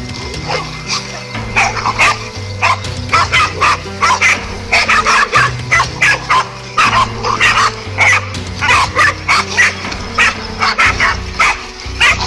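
Several dogs barking rapidly and excitedly, many short barks overlapping, as they attack a large snake. A steady musical drone of low notes runs underneath.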